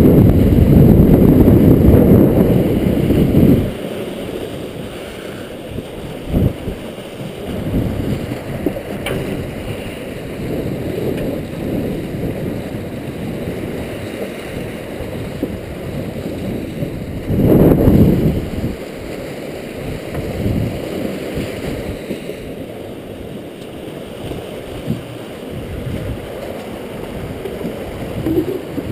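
Water rushing and churning through a rotary screw fish trap's cone and into its live box. Wind buffets the microphone in loud low gusts for the first three seconds or so and again briefly a little past halfway.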